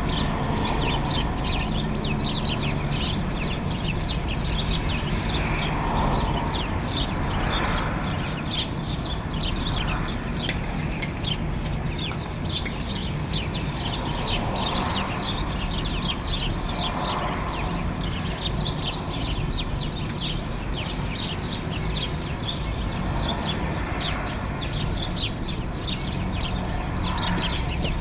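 A flock of house sparrows chirping nonstop, many short overlapping chirps from several birds at once, over a steady low background rumble.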